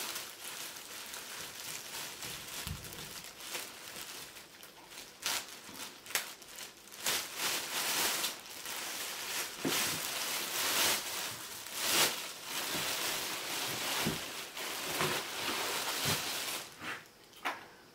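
Clear plastic bag crinkling and rustling as it is pulled off a telescope, with many sharp crackles and louder bursts of crinkling about halfway through.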